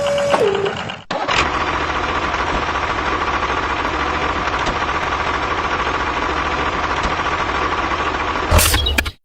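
A small motor running steadily with a thin whine and low rumble. It cuts out about a second in, starts again, and ends in a short loud burst near the end.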